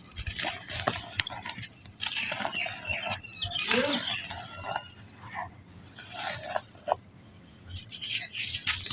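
Soft black sand balls crumbling between the fingers: repeated short bursts of gritty crunching and crackling, about six times.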